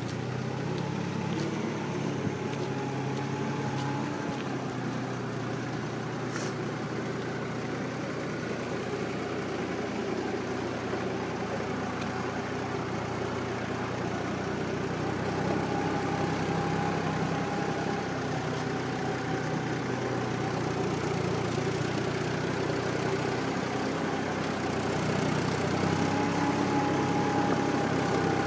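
Erkunt 70 tractor's diesel engine running steadily, with a higher whine that comes and goes.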